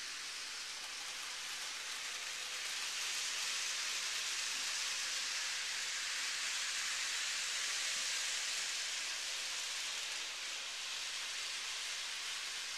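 Model railroad freight train running on the layout track: a steady hiss of rolling wheels and motor that swells as the train passes close and eases as it moves off around the curve.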